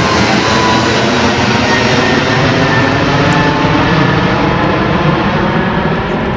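Boeing 737 MAX 8's CFM LEAP-1B turbofan engines at takeoff thrust: a loud, steady jet roar with a faint whine running through it, the high end fading near the end as the aircraft moves away.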